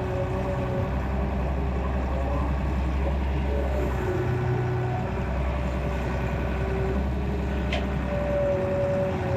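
Excavator diesel engine running under working load, its low note stepping up and down every second or two, with a steady higher tone above it and one short click near the end.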